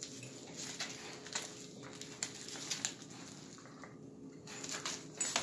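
A small dog nosing and pawing at a ball on a rug: scattered soft scuffs and taps, over a faint steady hum.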